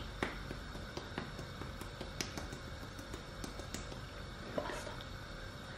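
Paprika being shaken from a spice jar over a frying pan: faint, irregular light ticks and taps, with a low steady hum underneath.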